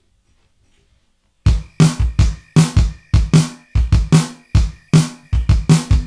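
Near silence, then about one and a half seconds in a drum beat starts: an intro of steady kick and snare hits.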